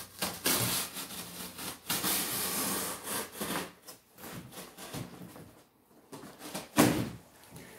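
Packing tape being peeled off a cardboard box: a long, loud ripping pull lasting about three seconds, then shorter pulls and cardboard rubbing. The loudest sound comes near the end.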